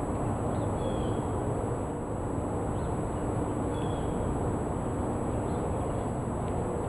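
Outdoor background of a steady low rumble, with two short high bird chirps about a second in and again near the middle. No siren is sounding.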